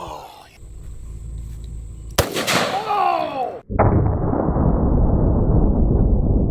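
A single gunshot about two seconds in, followed by a shout. About a second and a half later a loud, steady noise starts abruptly and runs on.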